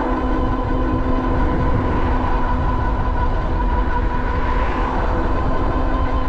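Ariel Rider Grizzly e-bike cruising on pavement under its rear hub motor: a steady low rumble of wind on the microphone and tyre noise, with a thin whine held on one pitch throughout.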